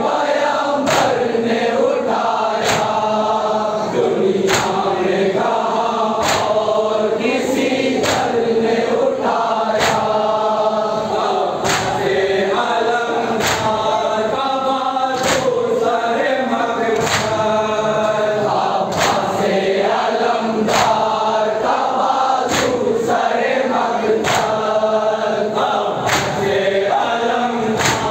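A group of men chanting a noha (Shia lament) in chorus over loudspeakers, with sharp chest-beating matam strokes keeping time about once a second.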